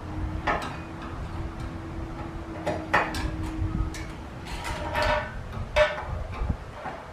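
Irregular clicks, knocks and short metallic clinks of ceiling-fan mounting hardware (bracket and screws) being handled, with a faint steady hum through the first half.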